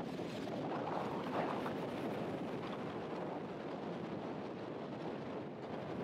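Winter surf breaking and washing up a pebble beach: a steady, even rush of waves over shingle.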